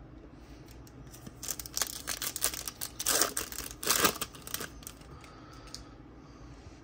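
Foil pack of Topps Gold Label baseball cards being torn open and crinkled: about three seconds of crackling rips and rustling, loudest around three and four seconds in.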